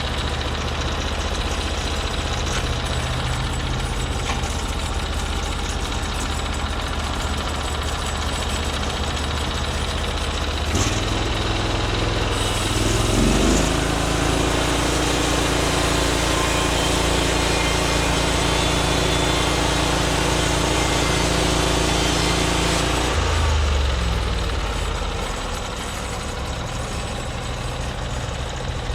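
Norwood MX34 bandsaw mill's engine running steadily at idle. About twelve seconds in it is throttled up to a higher, steady speed and held there, then drops back to idle near the end.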